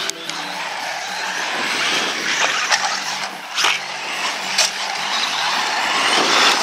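Tamiya Bigwig 4WD RC buggy running hard around a dirt track: its electric motor whines up and down in pitch as it accelerates and brakes through the corners, over a constant hiss of tyres on the dirt. A few sharp knocks come in the middle as the buggy hits bumps.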